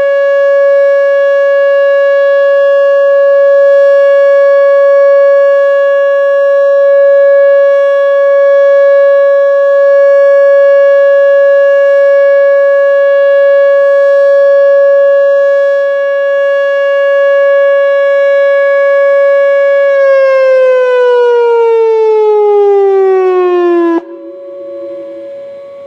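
Whelen WPS-2910 electronic siren sounding its alert signal: one steady, very loud tone with strong overtones. About twenty seconds in, it glides down in pitch for a few seconds and then cuts off abruptly, ending the alert.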